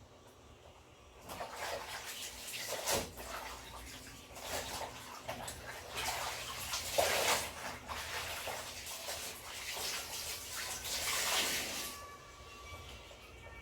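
Clothes being washed by hand in water: uneven sloshing and splashing in repeated surges that stop about twelve seconds in.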